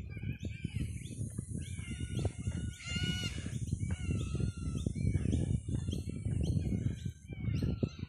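Many birds calling at once, short arched chirps overlapping one after another, over a steady low rumbling noise.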